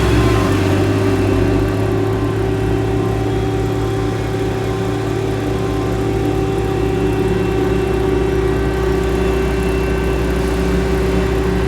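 Diesel engine of heavy asphalt paving machinery running steadily with a constant hum, and the last tone of a reversing beeper right at the start.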